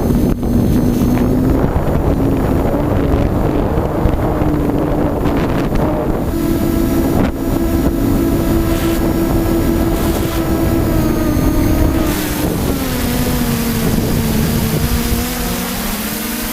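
A motor running with a humming tone that drifts up and down in pitch, under heavy wind noise on the microphone.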